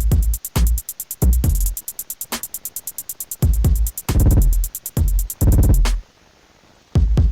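Background music with a drum-machine beat: deep bass hits that slide down in pitch, under fast, even hi-hat ticks. The beat drops out about six seconds in, and bass hits return near the end.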